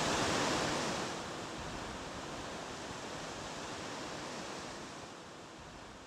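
Ocean surf washing on a sandy beach, a steady hiss that drops a little about a second in and then slowly fades out.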